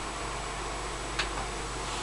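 Steady low hiss and hum of room tone, with one sharp click about a second in.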